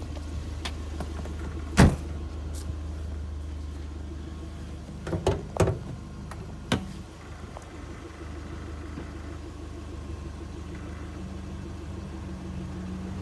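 1991 Toyota MR2 Turbo's turbocharged four-cylinder engine idling steadily while still warming up after a cold start. A sharp, loud click comes about two seconds in, and a few more knocks follow around five to seven seconds in.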